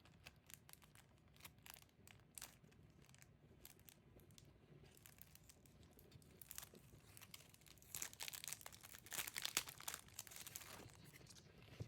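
Faint crinkling and tearing of packaging as a photo card is unwrapped by hand, with scattered light clicks at first and a busier crackle about eight seconds in.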